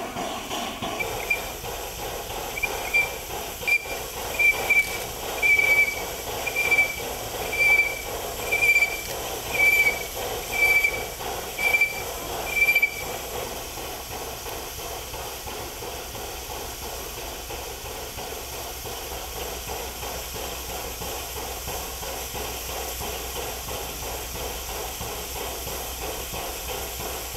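Steam locomotive standing with a steady hiss of escaping steam. Through the first half a short high squeak repeats about once a second, about a dozen times, then stops, leaving the hiss alone.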